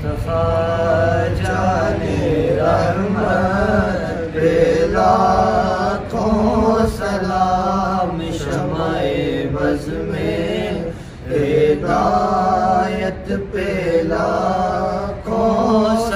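Unaccompanied group of male voices opening a naat-style salam: a steady hummed drone under a slow, wavering wordless melody sung in long phrases.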